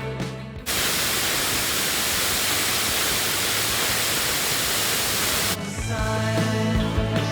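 Rock music cuts off under a second in, giving way to the steady rush of a waterfall for about five seconds, then the music comes back.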